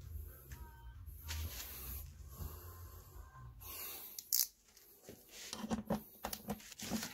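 Work on a plastic car bumper with an 18 mm knockout punch: low rumbling handling noise, then a short loud scrape about four seconds in and a scatter of clicks and knocks near the end.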